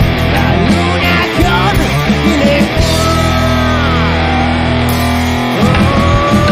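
Rock band playing an instrumental passage: distorted electric guitar notes that slide and bend in pitch over long held bass notes, with the held notes breaking off about five and a half seconds in.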